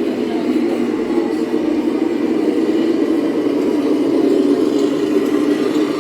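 Steady mechanical running noise, even and unbroken, growing slightly louder past the middle.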